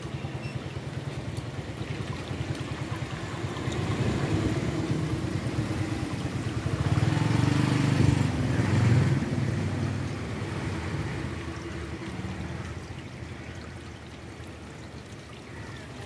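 Water trickling and splashing down a stacked-stone garden fountain into its round basin, over a steady low rumble; it grows louder around the middle, then eases off.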